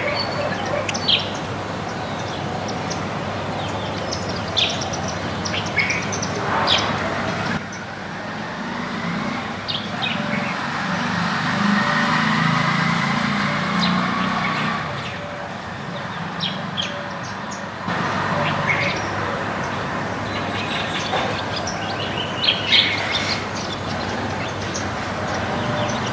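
Backyard birds giving short, scattered chirps and calls over steady outdoor background noise. In the middle a low traffic rumble swells and fades, as a vehicle passes.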